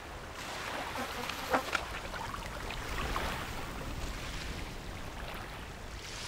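Steady wash of surf on the shoreline, with two sharp clicks about a second and a half in.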